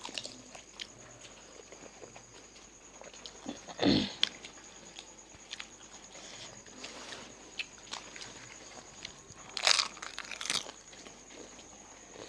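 Crunching and chewing as crisp fuchka shells filled with tamarind water are bitten and eaten. Scattered small crunches, with louder bites about four seconds in and twice near ten seconds.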